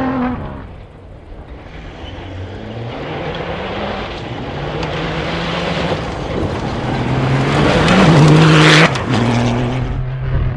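A cross-country rally vehicle's engine approaching at speed, rising in pitch and growing steadily louder, then dropping in pitch as it passes close by about nine seconds in.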